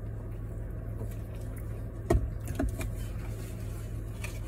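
Steady low hum inside a parked car, with a sharp knock about two seconds in and a softer one half a second later as a fountain-drink cup is set down and he reaches across the seat.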